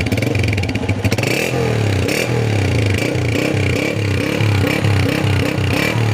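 Honda CG 125's single-cylinder four-stroke engine running in a sound test, its note pulsing and wavering a little in pitch.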